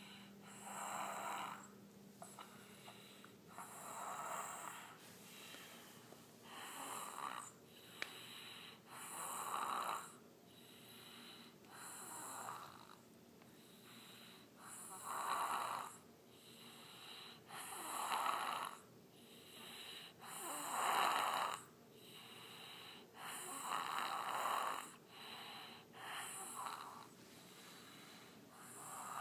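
A sleeping baby snoring, a raspy breath about every two and a half to three seconds, some breaths louder than others.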